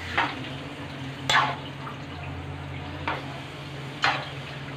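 Stir-frying pancit bihon in a metal wok: a utensil scrapes and knocks against the pan four times as the rice noodles are tossed, over a steady low hum.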